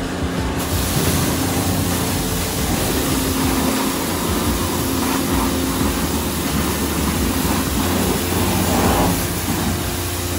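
High-pressure spray wand in a self-service car wash bay, spraying steadily from about half a second in, over the low steady hum of the bay's pump machinery.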